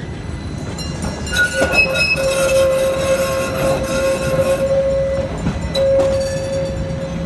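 Athens tram passing at close range as it turns, its running rumble joined about a second and a half in by a steady, piercing squeal from the wheels on the curve, which breaks off briefly near five seconds and returns until near the end.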